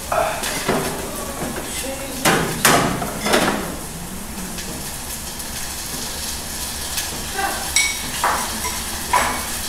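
Kitchen clatter: sharp knocks of dishes and utensils on a countertop, three loud ones between two and three and a half seconds in and lighter clicks near the end, over a steady low hum.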